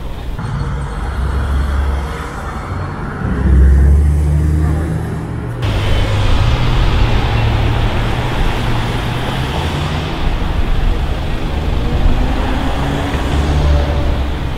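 Busy city-street traffic: car engines running and passing close by, with a strong low engine rumble. Near the end, an engine's pitch rises slowly as a car accelerates.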